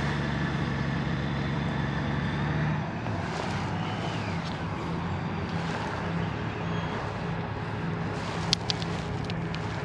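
Motorcycle engine running at low revs, a steady note for about three seconds that then drops in pitch and carries on unevenly. A few sharp clicks near the end.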